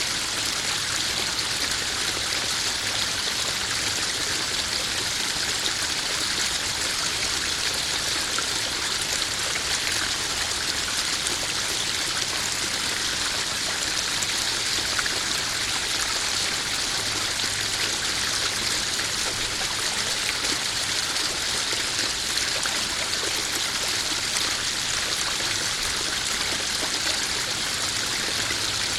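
Small garden waterfall splashing and trickling steadily into a koi pond.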